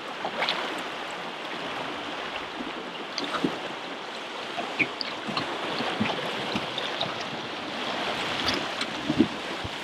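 Steady rush of fast river water around a drift boat, with a few light knocks from the oars being worked.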